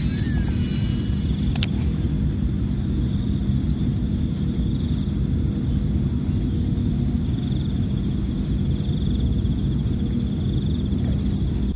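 Steady low rumble of outdoor ambience with a faint high insect-like buzz that swells and fades, and a single sharp click about two seconds in.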